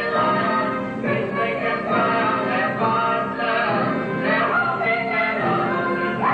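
Broadway musical number: singing voices, several together, over instrumental accompaniment.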